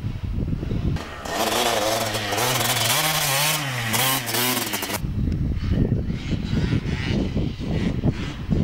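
Dirt bike engine revving hard as the bike passes close, its pitch rising and falling, then cutting off suddenly about five seconds in, leaving a low rumble.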